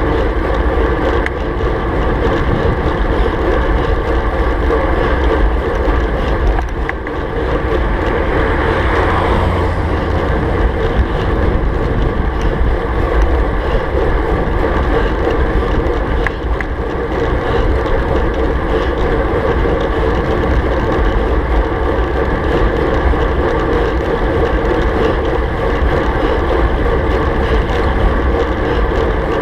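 Steady wind rush over the camera's microphone on a time-trial bicycle ridden at about 35 km/h, with road and tyre rumble underneath and a brief swell about nine seconds in.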